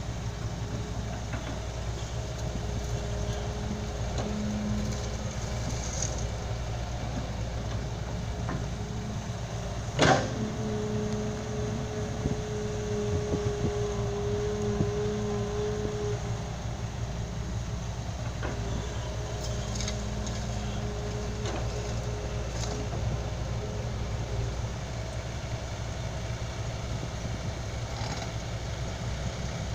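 Heavy vehicle engine running steadily at a low, even hum. About ten seconds in there is a single sharp knock, the loudest moment, followed by a steady higher-pitched tone for several seconds.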